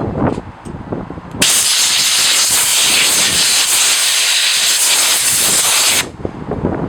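A loud, steady hiss that starts abruptly about a second and a half in and cuts off sharply about six seconds in.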